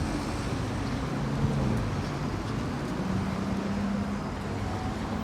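City street traffic: a steady background rumble of vehicles, with engine hum that rises and fades as vehicles run past.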